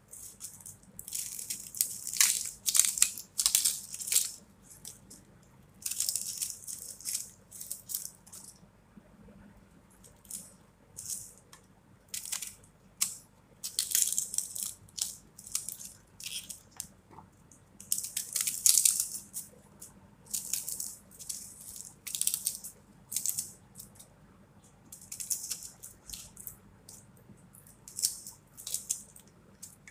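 Dry, papery red onion skins crackling and rustling as they are peeled off by hand with a small knife, in short bursts with pauses between.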